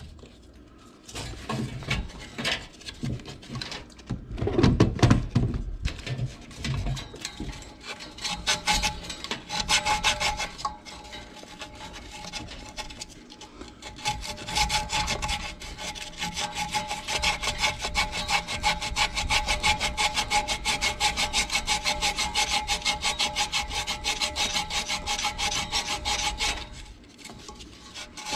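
A hand tool worked at the hub of an HVAC blower wheel, loosening the blower motor inside it. Irregular knocks and handling noises come first; about halfway through they give way to a fast, even rasping rhythm that stops shortly before the end.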